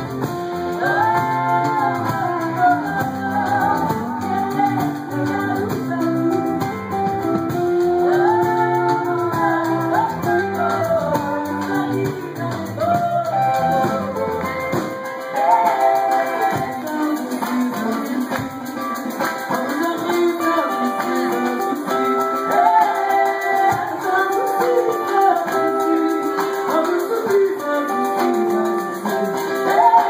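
Live band music: electric guitar, ukulele, bass and drums, with a woman and a man singing. The deepest bass drops out about halfway through.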